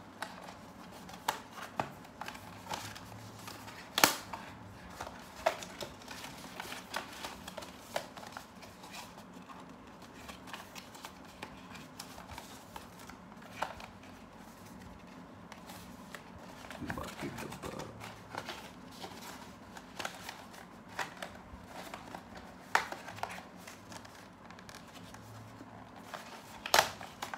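A small cardboard product box and its paper inserts being handled and opened by hand: irregular taps, scrapes and rustles, with a sharp knock about four seconds in and another near the end.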